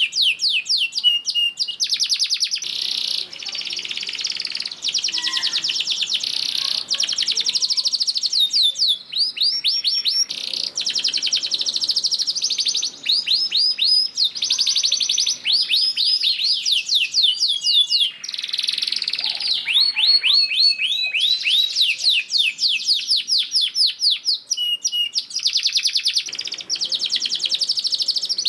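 Domestic canary singing a long, continuous song of fast trills: rapid strings of repeated downward-sweeping notes, with only brief breaks between phrases.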